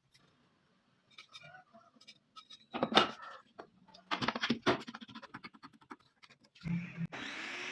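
Wood and tools being handled on a bench: scrapes, light clicks and knocks, with one sharp knock about three seconds in. Near the end a power tool starts up and runs.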